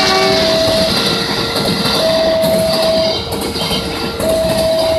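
A train passing close by, its wheels clattering over the rail joints, while the level crossing's warning alarm rings, switching between a higher and a lower tone about once a second.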